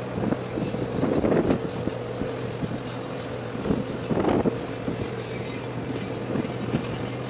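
Steady drone of marine diesel engines from the vessels working the berthing, a constant hum with wind noise on the microphone that swells twice, about a second and about four seconds in.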